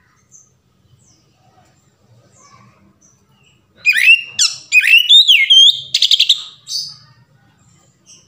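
Oriental magpie-robin (kacer) singing a loud phrase, starting about four seconds in: whistled notes sweeping up and down, broken by a fast rattling trill near the end.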